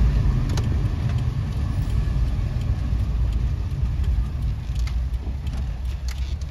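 A kei van's engine and tyres running steadily at low speed, heard from inside the cabin as a low rumble. Scattered light ticks sound over it.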